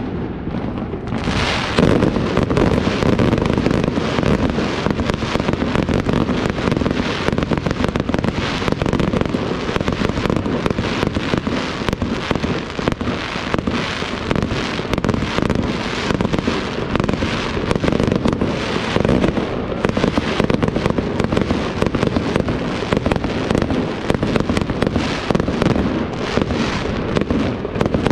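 Aerial fireworks display: a dense, unbroken barrage of shell bursts, many overlapping bangs and crackling reports a second, growing heavier about two seconds in.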